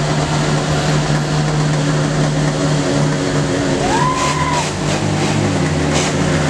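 A motor vehicle's engine running at a steady speed, with a short high tone that rises and then holds briefly about four seconds in.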